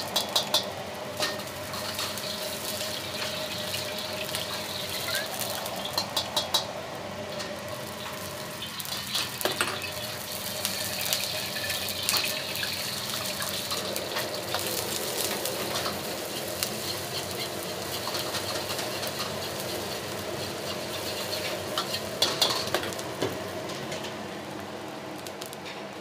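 Egg frying in oil in a wok over a gas burner: steady sizzling with a tap running into the next wok. Short bursts of a metal ladle clanking against the wok, about five times.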